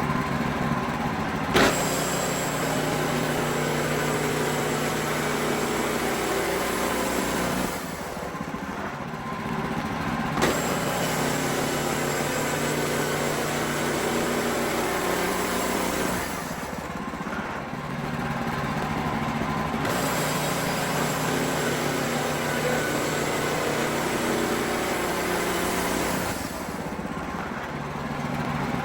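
Wood-Mizer LX55 band sawmill running steadily while it saws a pine log into boards. Its high sound drops away for two or three seconds about every nine seconds, with a sharp click now and then.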